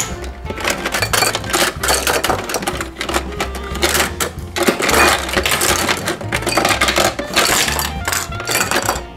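Hard plastic toy figures clattering and rattling as they spill out of a toy garage and drop onto a plastic ramp and into plastic toy tubs, thickest about halfway through and again near the end, over background music with a steady bass.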